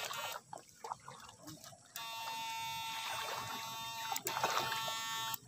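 Battery-powered electrofishing shocker's inverter giving a steady, high buzzing whine while the current is switched on through the pole electrode in the water. It starts suddenly about two seconds in and cuts off suddenly near the end, after a short stretch of water sloshing around the pole.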